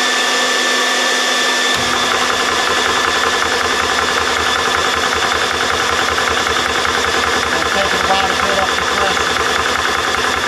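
Vevor portable PCP high-pressure air compressor: its built-in cooling fan runs with a steady whine, then about two seconds in the pump motor starts and runs with a fast, even chugging as it begins filling the air rifle.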